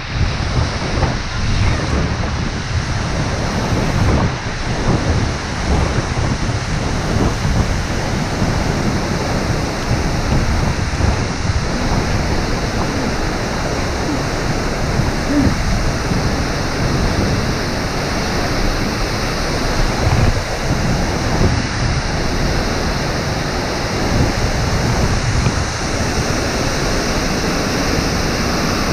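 Steady roar of a waterfall pouring into a narrow rock gorge, with wind and spray buffeting the action camera's microphone.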